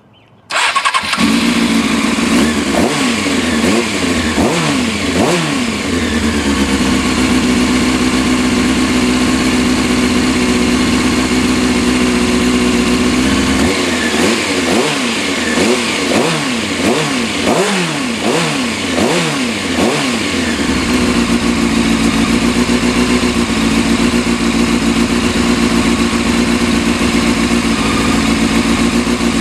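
Sport motorcycle engine starting about half a second in, then idling, with two runs of repeated throttle blips that send its pitch up and down before it settles back to a steady idle. It is revved to burp trapped air out of the freshly refilled cooling system, which makes the coolant level drop.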